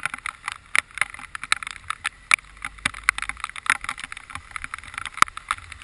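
Heavy rain striking close to the microphone: a dense, irregular patter of sharp drop ticks.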